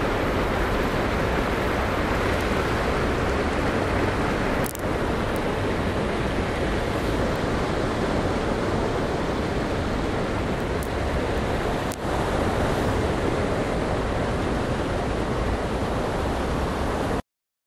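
Steady outdoor rushing noise, with two brief dips at about five and twelve seconds in, cutting off suddenly near the end.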